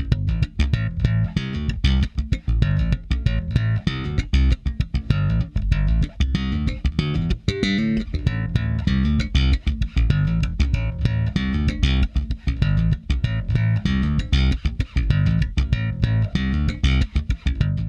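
Electric bass guitar playing a fast, driving line of short notes with sharp attacks, heard as a solo track run through an SSL-style bus compressor plugin.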